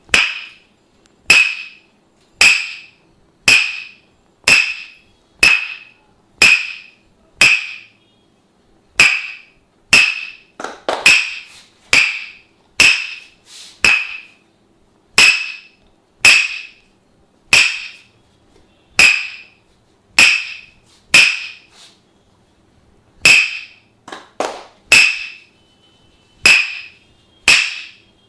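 Tok Sen massage: a wooden mallet knocking on a wooden wedge, about one sharp knock a second, each with a short ringing tone. Twice the knocks come in a brief quicker run.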